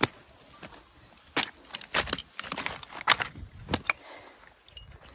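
Footsteps over loose, flat slate shards, the pieces knocking and clinking against each other underfoot. There are several sharp, uneven knocks, roughly half a second to a second apart, that come thickest in the middle.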